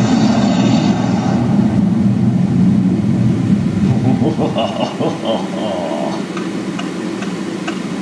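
Car cabin noise while driving: a steady low rumble from the road and engine, with a brighter rush of noise in the first second or so and indistinct voices murmuring in the second half.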